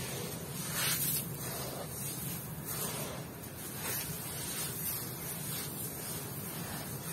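A hand raking and scooping through a heap of dry crushed stone and coarse sand, the grains hissing and trickling in repeated strokes about once a second.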